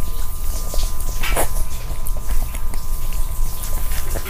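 Fingers squishing and mixing soft moong dal khichuri on a steel plate, with scattered short wet clicks of eating by hand and chewing. A steady low hum runs underneath.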